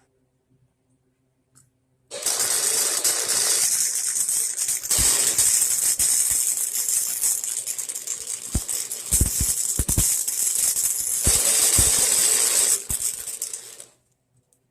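Harbor Freight 90-amp flux-core wire welder laying a weld bead: a steady crackling, sizzling arc with scattered sharper pops, starting about two seconds in and stopping near the end.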